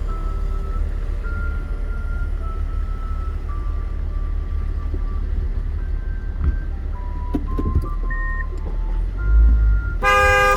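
Steady low road rumble of a car driving, with background music: a simple melody of single tones. A short, louder tone comes near the end.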